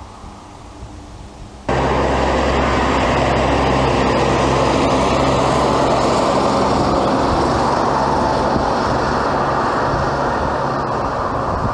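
A motor vehicle's engine running with loud, steady rumbling road noise. It cuts in suddenly about a second and a half in, and its low hum fades toward the end while the noise goes on.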